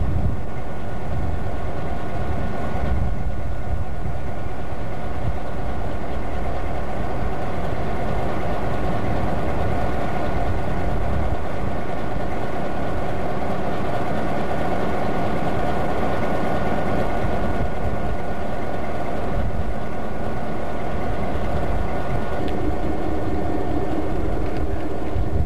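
Chicago Central EMD diesel locomotives hauling a coal train out of the yard. Their engines make a steady, heavy drone with a faint steady whine above it. A deeper engine note joins near the end.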